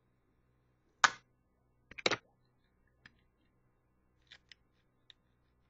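Plastic Beyblade launcher parts and packaging being handled: a sharp click about a second in, a quick cluster of clicks a second later, then a few faint ticks.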